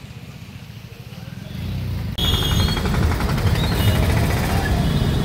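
Vehicle engine and road traffic heard from inside a vehicle in wet city traffic. A loud low rumble cuts in suddenly about two seconds in, after a quieter steady hum.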